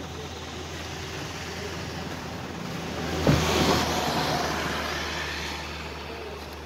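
A cargo truck driving past on a gravel road: engine and tyre noise swell to a peak a little after three seconds in, with a sharp clatter at the loudest point, then fade. A steady low engine hum runs underneath.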